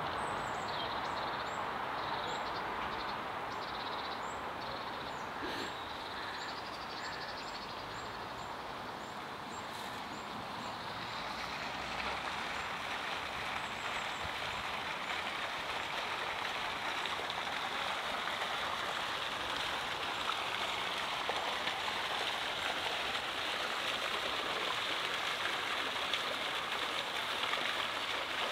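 Steady rush of running water, growing louder about twelve seconds in, with small birds chirping high and repeatedly over the first third.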